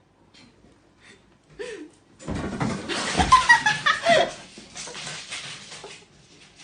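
Human laughter for several seconds, coming in after a quiet start and fading out near the end.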